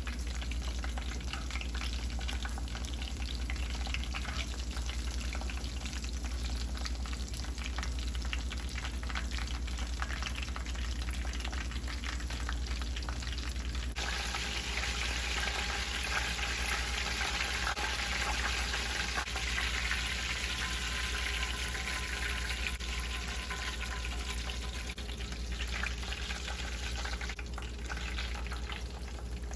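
Chicken katsu cutlets frying in hot oil, with a steady crackling sizzle. About halfway through, the sizzle suddenly becomes louder and hissier.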